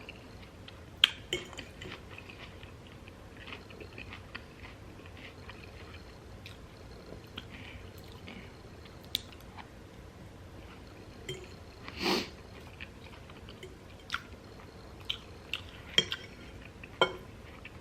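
A person chewing a taco salad of romaine lettuce close to the microphone, with scattered short clicks of a utensil against the dish; the loudest clack comes about twelve seconds in, and several more come near the end.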